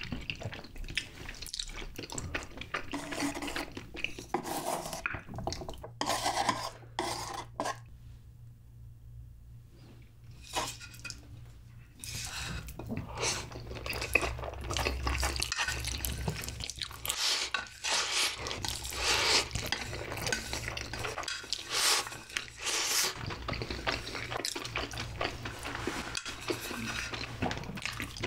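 Close-miked slurping and chewing of saucy instant noodles, with chopsticks and a metal spoon clinking against the bowl and tray. There is a short quieter lull about eight seconds in.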